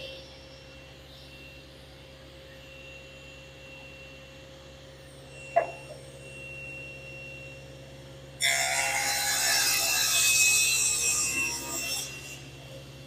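Power saw and dust collector running with a steady hum, with a single sharp knock about halfway. About eight seconds in, the blade cuts loudly through a wooden board for about four seconds, then drops back to running free.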